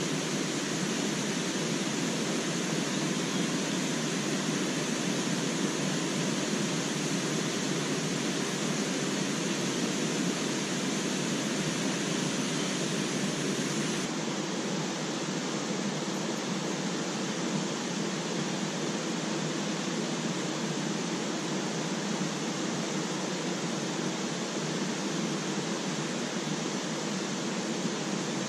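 Steady rushing noise with no distinct events; the highest hiss drops away about halfway through.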